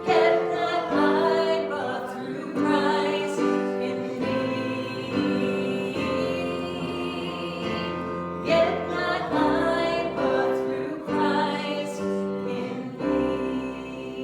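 Worship song: singing over sustained keyboard chords, the sung lines rising and falling above held notes.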